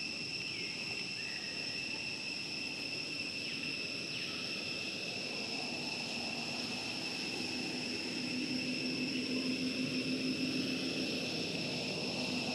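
Steady high-pitched insect chorus, two thin whining tones held throughout. A low engine hum comes in around the middle and grows louder in the second half.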